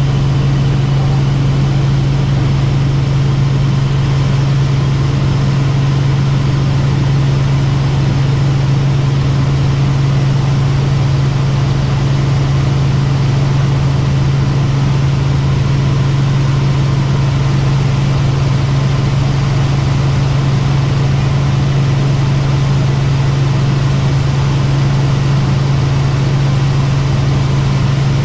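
Helicopter in flight: the steady, loud drone of rotor and engine, with a strong unchanging low hum.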